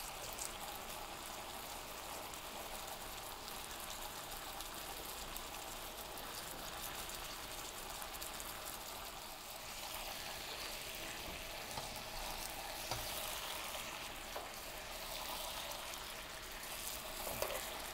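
Teriyaki sauce (soy, sake and vinegar marinade) sizzling steadily in a frying pan around a chicken thigh and shimeji mushrooms, a fine even crackle as the sauce reduces toward a thick glaze.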